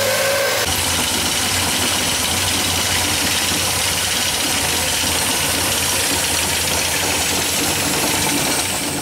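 MGB's 1.8-litre B-series four-cylinder engine with twin SU carburettors running at idle, steady and slightly rough. The owner puts the roughness down to too little choke and a mixture that still needs tuning.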